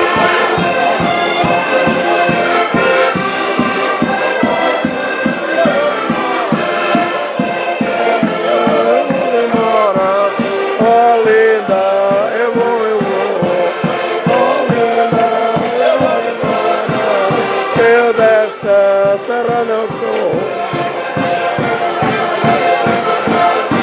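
Several accordions playing a lively Portuguese folk tune together, with a steady bass drum beat under it.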